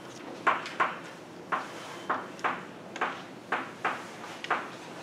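Chalk writing on a blackboard: about a dozen short, irregular taps and scrapes of the chalk as symbols are written.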